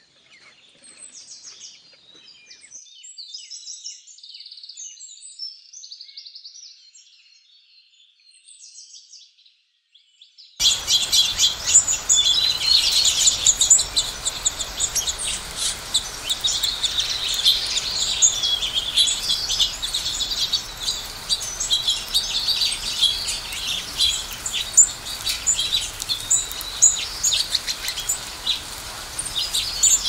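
Ducklings peeping faintly. About ten seconds in, a sudden switch to a flock of small finches chirping and twittering busily and loudly.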